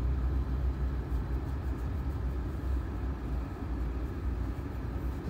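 Steady low rumble of a car's running engine heard from inside the cabin.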